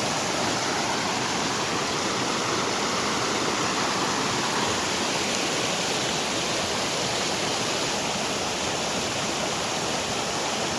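A flood-swollen mountain river rushing steadily, an even wash of water noise.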